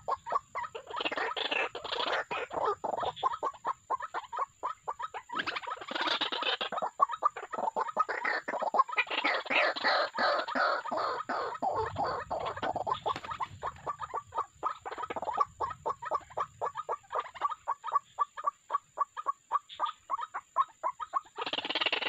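White-breasted waterhens calling: a long run of fast, repeated croaking notes, about four or five a second, growing louder and fuller in several stretches.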